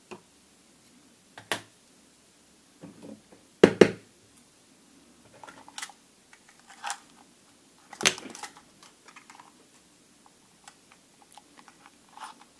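Irregular clicks and knocks of small tools and parts being handled on a workbench, the loudest a double knock about four seconds in and another about eight seconds in.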